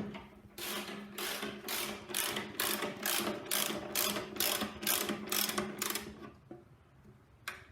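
Ratchet wrench clicking in quick, even back-strokes, about three a second, as a tight fuel-tank bolt is wound out; the strokes stop about six seconds in, with one more short stroke near the end.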